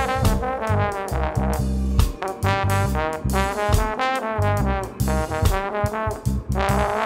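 Upbeat band music led by brass horns playing a sliding, jazzy melody over a low bass line.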